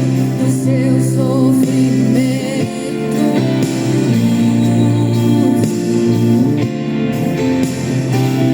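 Christian worship song playing: a singing voice holding wavering notes in the first few seconds, over sustained instrumental backing.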